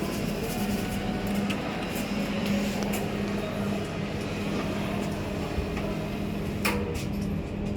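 Steady low machinery hum, like ventilation, over general room noise, with two sharp knocks near the end.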